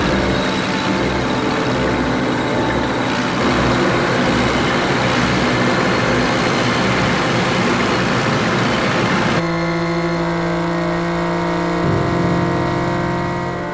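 Tank engine sound effect running steadily under moving toy tanks. About nine seconds in it cuts off suddenly and slow music with long held notes takes over.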